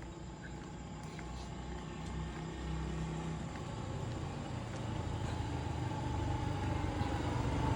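Motor vehicle engine and road noise, low-pitched and steady, growing gradually louder through the stretch.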